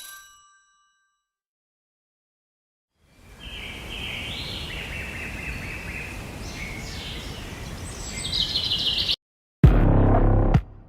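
A bell-like ding's ringing fades out. After a few seconds of silence, birds chirp and trill over a steady outdoor hiss for about six seconds, then music with a heavy bass beat cuts in near the end.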